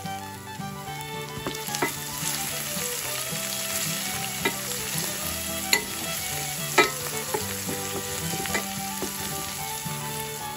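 Chopped ginger, garlic, green chillies and curry leaves sizzling in hot oil in a stainless steel pan, stirred with a wooden spatula. The spatula knocks sharply against the pan about five times.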